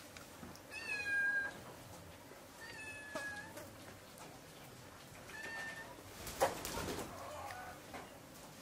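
A cat meowing three times in short, high calls, each falling slightly in pitch. A sharp click and a brief clatter follow about six and a half seconds in.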